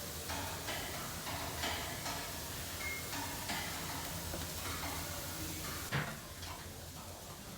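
Hand work on an engine-bay intake install: a run of light, irregular clicks and scrapes from tools and parts, with one sharper knock about six seconds in, over a low steady hum.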